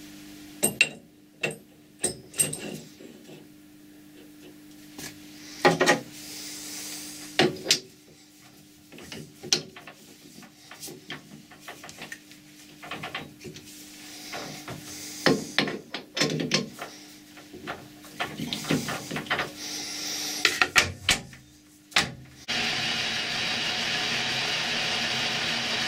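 Metal clinks and knocks as a mandrel holding a copper disc is fitted into a lathe chuck and tightened with the chuck key, over a faint steady hum. Near the end it gives way suddenly to the steady running noise of a Colchester Student metal lathe turning the copper disc.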